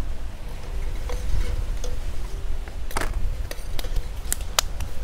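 Metal spoon stirring a coconut curry in a stainless steel pot, with a few sharp clinks of spoon against pot in the second half, over a steady low rumble.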